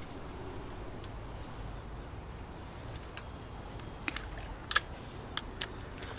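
A handful of sharp clicks or taps over a steady low rumble, the loudest one about three quarters of the way through.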